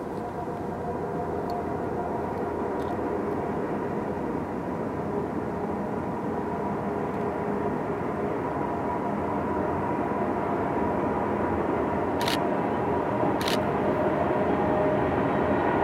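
Distant CN freight train approaching behind its two diesel locomotives, an SD70M-2 and an ES44DC, heard as a steady engine drone that grows slowly louder. Two sharp clicks come near the end.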